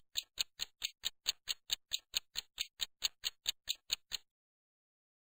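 Countdown timer sound effect: an even, clock-like ticking at about four to five ticks a second, which stops about four seconds in.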